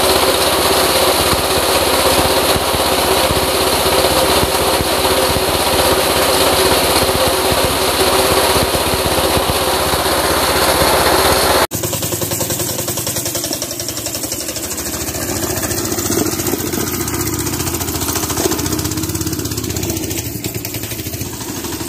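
New 200 cc single-cylinder four-stroke engine, of the small stationary kind, running steadily at a fast idle. After a sudden cut about twelve seconds in, an engine is heard quieter and lower, its level rising and falling a little.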